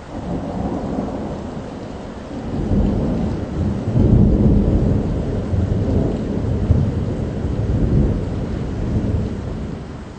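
A long peal of rolling thunder over steady rain. It breaks in suddenly, swells in several rumbling peaks to its loudest about four seconds in, and dies away near the end, leaving the rain hiss.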